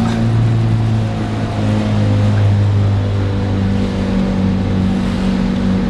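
Turbocharged Honda Civic's engine running under way at fairly steady revs, a continuous drone whose deepest part eases off about four seconds in.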